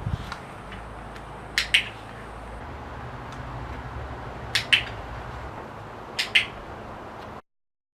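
Three sharp double clicks, about a second and a half apart, over a faint steady hum.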